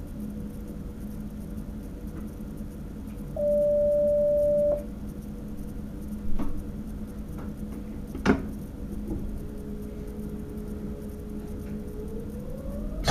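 Inside the driver's cab of a Sprinter electric train: a steady hum, one steady beep lasting about a second and a half, a few clicks and a knock, then near the end a whine that rises steadily in pitch as the electric traction drive starts the train moving.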